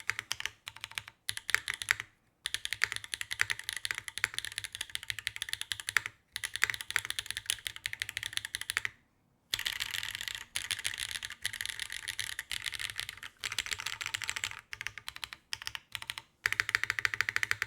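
Fast typing on a mechanical keyboard fitted with HMX Hydra tactile switches and a carbon plate: quick runs of keystrokes broken by brief pauses every few seconds.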